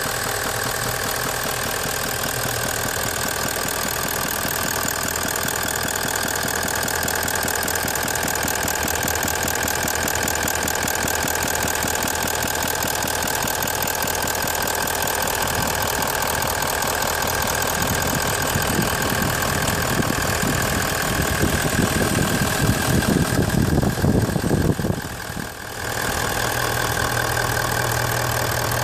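Toyota Land Cruiser 200's 4.5-litre V8 diesel idling with a dull knocking, chugging sound from the right side of the engine. The owner says the knock appeared at about 103,000 km along with higher fuel use, and the dealer calls it normal. The engine sound grows louder and rougher for several seconds about two-thirds of the way through, then drops briefly.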